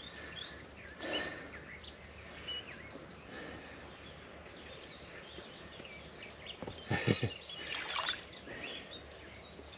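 Small birds chirping and singing, with a brief slosh and splash of shallow water about seven to eight seconds in as a hand-held carp stirs in the water.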